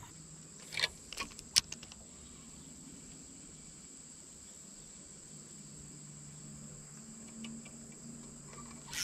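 Insects trilling steadily at one high, even pitch, with a faint steady low hum beneath. A few short sharp clicks or splashes come in the first two seconds.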